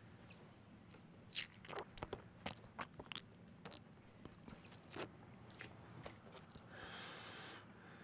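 Wet clicks and smacks from a man's mouth as he works up a gob of spit to hawk onto a burger, a dozen or so over a few seconds, then a short hiss near the end.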